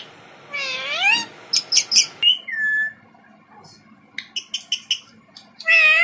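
Indian ringneck parakeet calling: a drawn-out call that rises and falls, a quick run of sharp clicks and chirps, a short level whistle, then more clicks and a loud call near the end.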